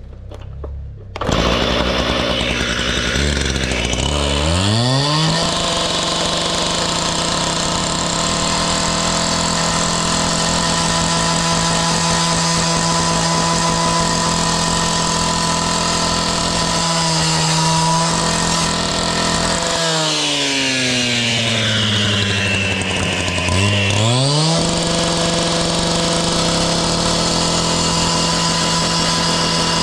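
Two-stroke petrol saw started about a second in, revving up to a steady high running speed. Its revs dip briefly about halfway through, then fall away and climb back to full speed about two-thirds of the way in.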